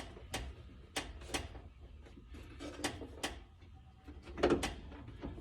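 Irregular light clicks and taps, about seven in a few seconds, as a rubber door seal is pressed and worked into place along a truck door.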